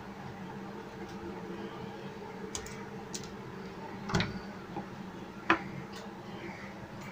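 A handful of small metallic clicks and taps from a safety pin and small pliers being handled while the pin is bent into a fishing hook, the sharpest click about five and a half seconds in. A steady low hum runs underneath.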